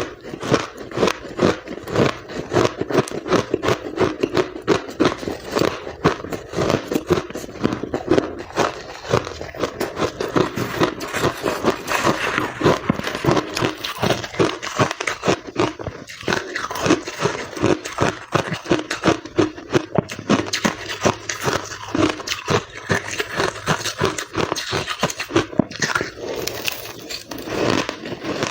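Ice being bitten and chewed close to the microphone: a continuous run of sharp crunches and crackles, many per second.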